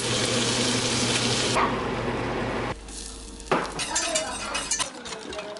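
Beef and soybean paste sizzling in a hot enameled cast-iron pot, a steady hiss that drops away after about two and a half seconds. Then a wire whisk stirs sauce in a saucepan, scraping and clicking against the pan.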